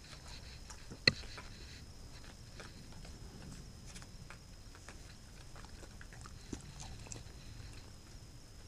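Scattered faint taps and clicks of corgis' paws and claws on a wooden floor, with one sharp knock about a second in.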